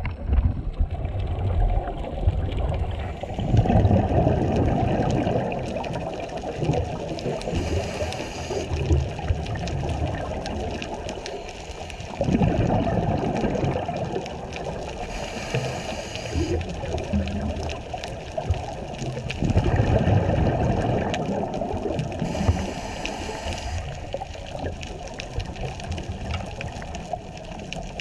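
Scuba diver breathing through a regulator underwater. A short hissing inhale comes about every seven seconds, and each is followed a few seconds later by a rush of exhaled bubbles, three breaths in all.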